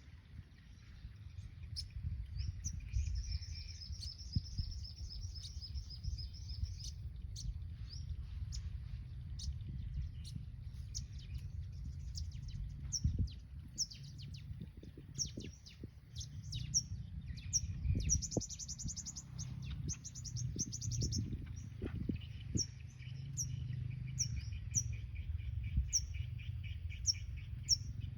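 Sunbirds calling: sharp, high downward chips repeated about once a second, with fast rattling trills in between, over a steady low rumble.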